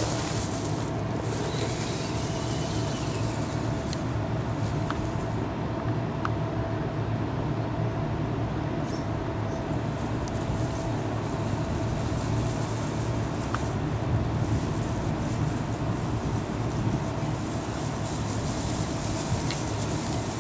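Tamiya CR-01 radio-controlled crawler's electric motor and gearbox running steadily as it crawls up loose rock, with a few faint clicks.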